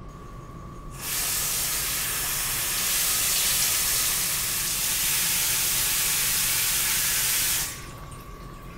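Water running from a bathroom sink tap into the basin, a steady hiss that starts about a second in and cuts off suddenly near the end.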